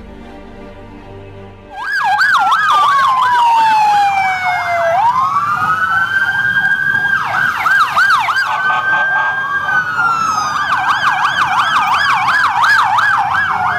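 Several police motorcycle sirens sound together, starting suddenly about two seconds in. One gives a slow wail that falls and rises over a few seconds, while another yelps in a fast warble.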